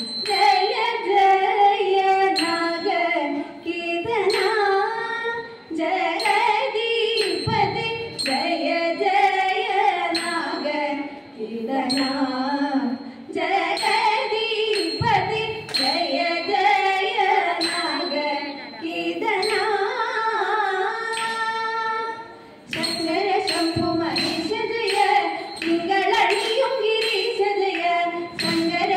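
Female voices singing a Thiruvathira song in a Carnatic style, accompanied by the dancers' hand claps keeping the rhythm.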